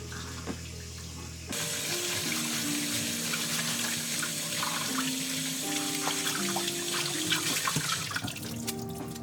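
Water running from a tap into a sink. It comes on suddenly about a second and a half in and lets up near the end, under steady background music.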